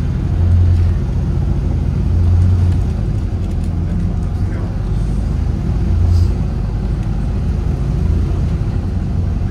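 Volvo B7RLE bus's six-cylinder diesel engine running on the move, heard from inside the passenger cabin: a steady low drone that swells into a deeper rumble four times.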